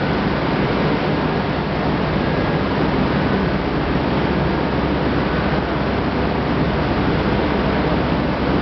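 Corn wet-milling plant equipment running: a steady, even rushing noise with water running through it and a low hum underneath.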